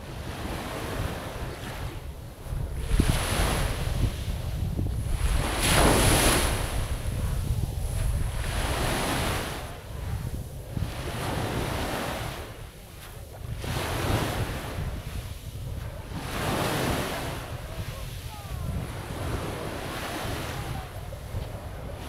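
Small waves washing onto the shore, swelling and fading every couple of seconds, the biggest about six seconds in, with wind buffeting the microphone throughout.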